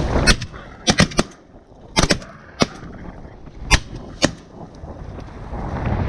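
Volley of shotgun shots fired at passing ducks: about nine sharp blasts over four seconds, several in quick succession, too many for one gun, so several hunters are firing. Wind buffets the microphone before the first shot and again near the end.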